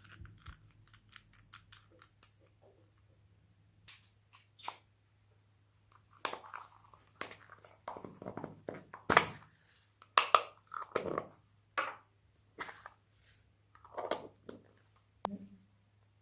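Slime being squished and worked by hand: irregular sticky crackles, clicks and squelching pops, sparse at first and coming thicker and louder from about six seconds in.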